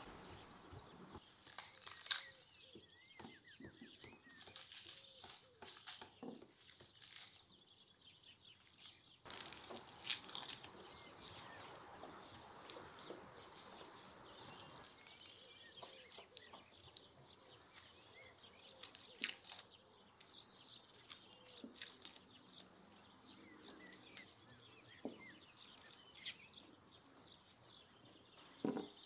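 Faint birds chirping over quiet background, with scattered sharp clicks and knocks of food preparation at a wooden table: a knife working garlic and stirring in a plastic bowl.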